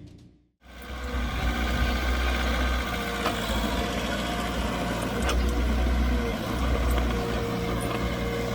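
Diesel engine of heavy earthmoving machinery running steadily, a low rumble that starts about half a second in, with a few sharp metallic clinks over it.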